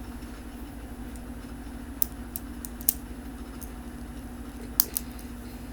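A handful of sharp, scattered clicks of plastic Lego bricks being handled and fitted together, over a steady low hum.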